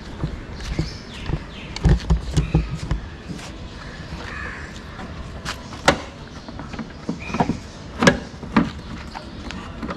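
Tata Altroz front bumper panel, hard plastic, being handled and pushed into place against the car body: a string of sharp plastic clicks and knocks, with a few low thumps about two seconds in.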